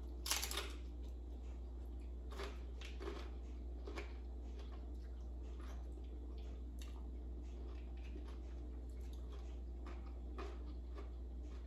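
A bite into a crisp corn tostada, with a short crunch just after the start, then faint chewing with scattered small crunches and wet mouth sounds over a steady low hum.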